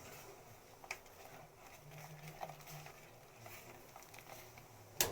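Faint bubbling of a pot of lemon-ginger water boiling on a gas stove, with a few light clicks and a sharper knock near the end.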